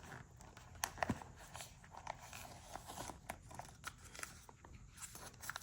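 Faint rustling of packaging, with scattered light clicks, as accessories are handled and pulled out of a carry case.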